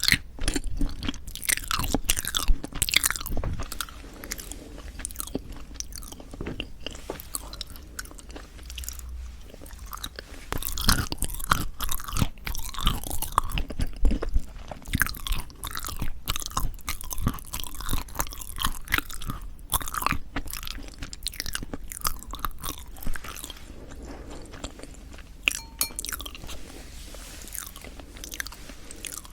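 Close-miked chewing of yanggaeng, sweet bean jelly: soft, wet mouth sounds with many quick irregular clicks and smacks.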